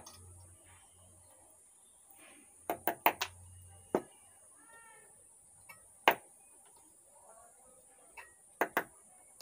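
Hand tools on metal: sharp clicks and clinks as a screwdriver works at the output transistors on a power amplifier's heatsink, freeing a shorted transistor. The knocks come singly and in quick pairs, the loudest about six seconds in.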